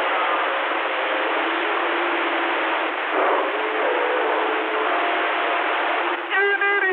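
CB radio receiver hissing with band static on single sideband, faint steady whistling carriers and garbled distant signals mixed in. Near the end a buzzy tone comes through, holds briefly and then drops sharply in pitch.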